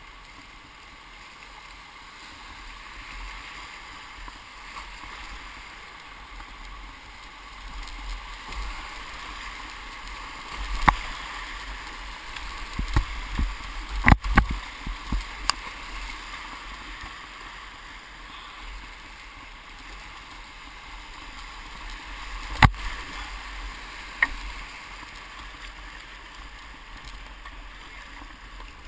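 Whitewater rushing steadily around a kayak running a rapid, broken by sharp splashes and knocks from the boat and paddle. They bunch together about halfway through, with two more about three quarters in.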